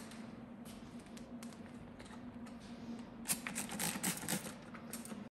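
Hands handling a carved printing block and paper on a printing press bed: scattered light clicks and rustles, with a quick flurry of taps and scrapes about three seconds in as the block is picked up. A steady low hum sits under it all.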